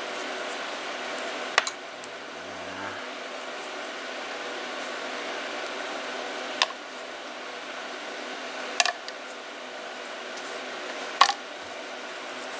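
Four sharp metallic clicks, spaced a few seconds apart, as small diesel fuel injector parts are set down into the metal dip basket of a parts-cleaner can. A steady hum runs underneath.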